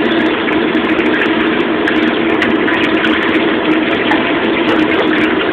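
Restaurant gas wok range running steadily with its exhaust hood, a loud, even noise under the carbon steel wok being seasoned with hot oil.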